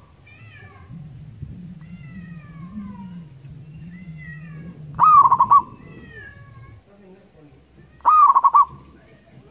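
Zebra dove (perkutut) cooing twice, about five and eight seconds in; each call is a loud, short trilled coo of about half a second.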